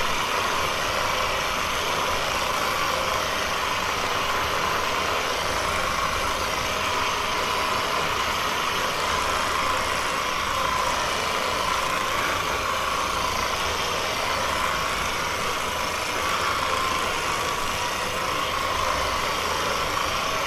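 Theragun percussive massage gun running steadily, a continuous motor buzz with no pauses.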